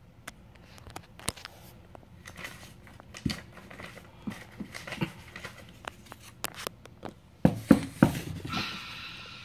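Scattered clicks, taps and paper rustling from paper cutouts being handled, with a few loud knocks about three-quarters of the way through and a brief hiss near the end.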